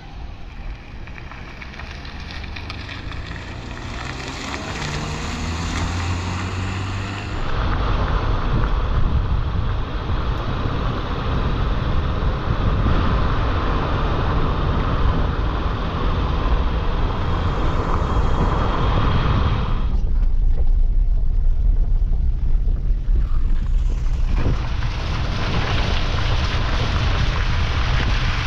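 A vehicle's engine pulls away and speeds up, its pitch rising. About seven seconds in, loud wind buffeting on the microphone and road rumble from the moving vehicle take over.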